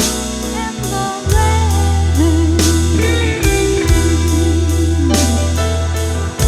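Instrumental rock ballad passage: an electric guitar lead with bends and wavering vibrato over a sustained bass and drums with steady cymbal strikes.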